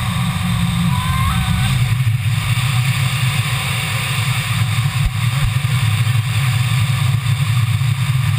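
Wind buffeting the camera's microphone during a parachute canopy descent: a steady, loud low rumble with a hiss over it.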